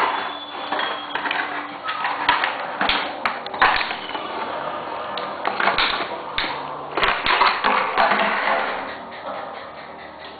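Irregular taps, clicks and scuffles of a chow chow puppy playing on a wooden parquet floor, its claws and paws knocking on the wood.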